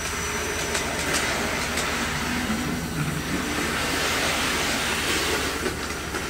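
The DC motor of a KATO N-gauge C11 model steam locomotive, driven by PWM whose frequency is varied to imitate a VVVF inverter's whine, runs the model away from the platform as it picks up speed. Its wheels rattle along the track beneath the drone.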